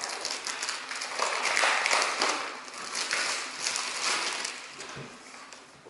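A folded paper setup poster being unfolded and handled: steady crackly paper rustling that fades near the end.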